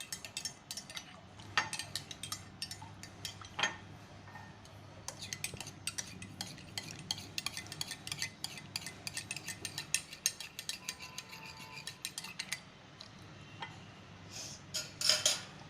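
A spoon stirring honey into the ginger-garlic kada, clinking against the side of the vessel. There are a few single clinks at first, then a long fast run of clinks in the middle, and a louder flurry near the end.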